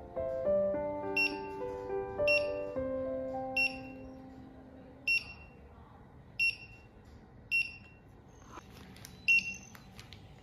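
Price checker's barcode scanner giving a short, high, identical beep each time a product barcode is read, eight times at intervals of roughly one to one and a half seconds. Soft piano music fades out over the first half.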